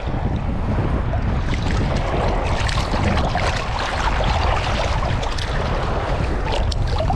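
Wind buffeting the microphone as a steady low rumble, over the wash of shallow surf, with water sloshing and splashing close by as a snook is held by hand in the water and let go.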